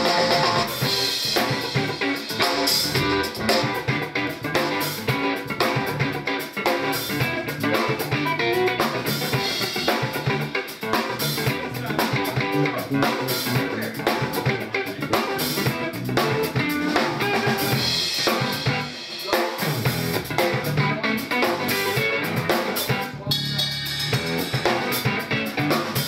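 Rock trio playing live through a PA: drum kit with snare and kick, a punchy bass and electric guitar.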